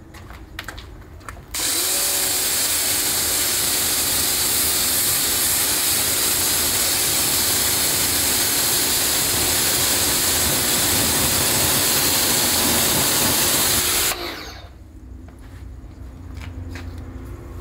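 Electric pressure washer starting about a second and a half in, its motor tone rising, then spraying water at a car's alloy wheel and tyre with a loud, steady hiss for about twelve seconds, rinsing the wheel cleaner off, before it cuts off suddenly.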